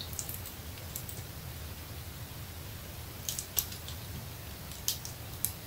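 Faint, scattered crinkles of the plastic film on a diamond painting canvas as it is held and shifted in the hands, a few short crackles over quiet room tone.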